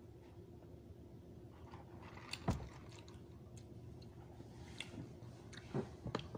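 Faint mouth sounds of a person eating and drinking: a few sharp clicks and smacks, the loudest about two and a half seconds in, with smaller ones near the end, over a steady low hum.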